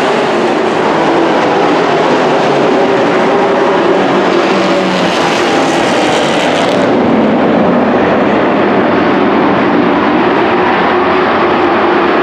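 Engines of several dirt-track racing pickup trucks running hard as they circle the track: a continuous loud din of engines. The top-end hiss cuts back about seven seconds in.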